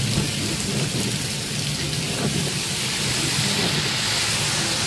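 Heavy rain beating on a car's windshield and body, heard from inside the cabin as a steady hiss over a low, steady hum from the car.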